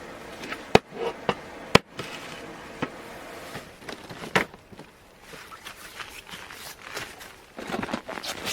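A few sharp clicks or snaps, the two loudest about a second apart near the start, then a looser run of small ticks and rustling.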